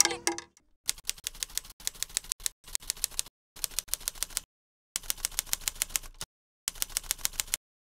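Typewriter keys clacking in quick runs of strokes, about eight to ten a second, in several bursts of one to two seconds with short breaks between them; a typing sound effect that goes with on-screen text being typed out.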